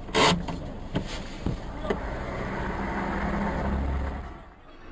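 A single loud bang from a car door right at the start, then a few lighter knocks. Under it a vehicle's engine runs steadily, swelling and then fading out near the end.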